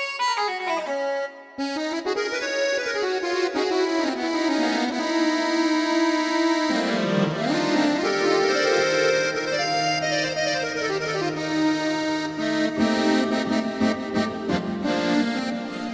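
KORG Nautilus synthesizer playing one of its preset combinations: a keyboard phrase of notes moving up and down over chords. A short break comes about a second and a half in, and a low bass note joins about seven seconds in.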